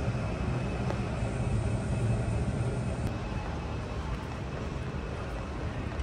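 Steady low rumble of airport apron noise with a faint steady high whine, typical of a parked jet airliner's auxiliary power unit at the gate, heard through the terminal glass.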